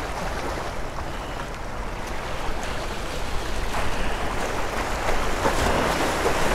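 Small sea waves washing and splashing against granite jetty rocks in a steady rush, growing a little louder in the second half.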